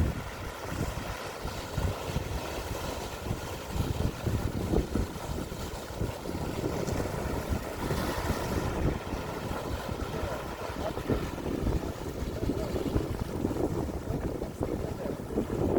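Sea waves washing with strong wind buffeting the microphone: a continuous, uneven low noise that swells and falls irregularly.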